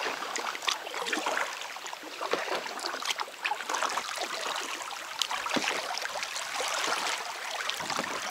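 River water trickling and lapping against an inflatable packraft as it drifts on a calm, slow stream, with many small drips and light splashes.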